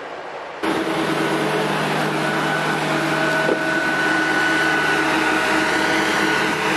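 Corn-harvest machinery running steadily: an even mechanical drone with several steady hum tones, starting abruptly about half a second in.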